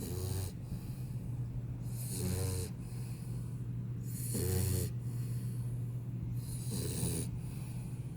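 Four-month-old pit bull puppy snoring in its sleep: four snores, one about every two and a half seconds, over a steady low hum.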